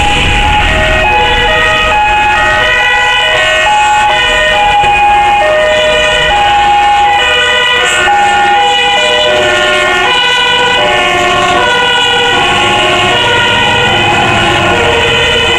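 Fire engines' two-tone sirens, each alternating between a high and a low note about every half second, with more than one siren sounding out of step so the notes overlap.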